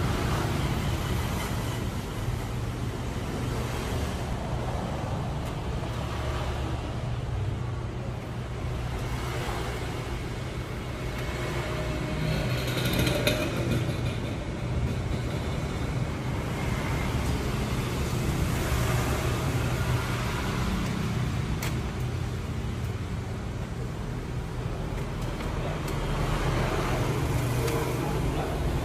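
Canon imageRUNNER ADVANCE colour copier running while it prints, a steady mechanical hum and whir with low drone, swelling slightly in places.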